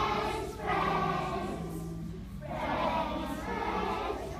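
A group of children singing together in unison, in three phrases with short breaks between them.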